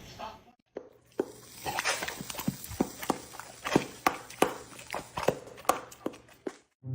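A run of irregular light taps and clicks, one to three a second, over a faint background hiss.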